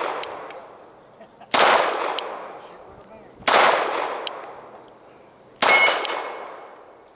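Three pistol shots about two seconds apart, each trailing off in a long echo. After the third there is a short metallic ring, like a steel target being hit.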